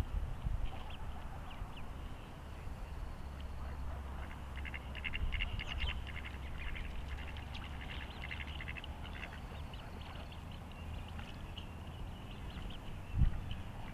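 Ducks on the water calling in quick runs of short notes, busiest through the middle, over a steady low rumble. A single thump near the end.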